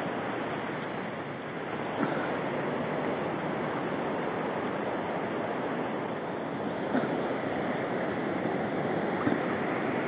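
Steady rushing of flowing river water, with a couple of faint knocks, one about two seconds in and one near seven seconds.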